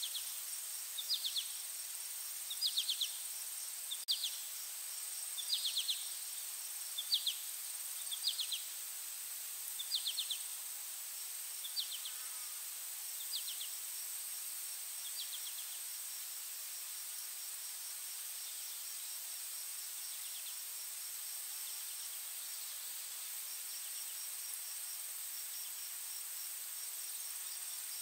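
Insect chorus: a steady high-pitched drone with a faint, faster pulsing beneath it, and short chirps repeating about every one and a half seconds that fade out about halfway through.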